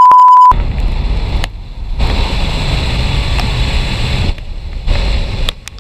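Heavy wind rushing over the chest-mounted action camera's microphone as the Formula Rossa roller coaster speeds along the track after its launch. A loud, steady electronic beep sounds for about half a second right at the start.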